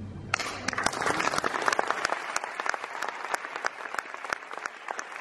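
The last chord of a string orchestra fades out, and audience applause breaks out a moment later and carries on, with single claps standing out from the rest.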